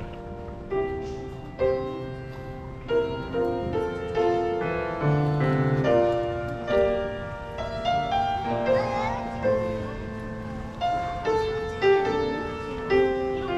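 Piano playing a slow, gentle tune in held chords, a new note or chord struck about once a second.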